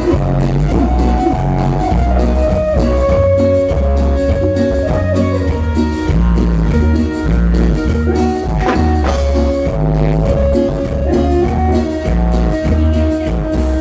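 A live band playing an instrumental passage, amplified. A lead melody moves in long held notes over a repeating bass line and drum kit.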